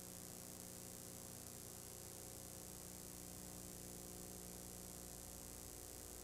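Faint background music with steady held notes over a hiss.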